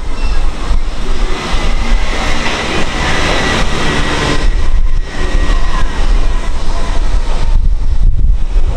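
Wind buffeting the microphone with a heavy low rumble, while a broad rushing noise swells for a few seconds and fades again, like a jet or vehicle passing by.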